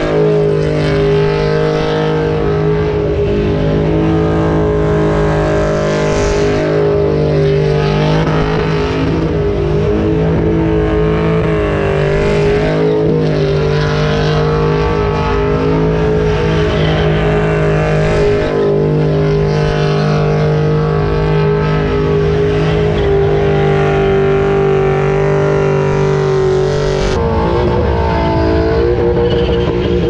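Car engine held at steady high revs through a long burnout, with the rear tyres spinning against the pavement; the engine note shifts about four seconds before the end.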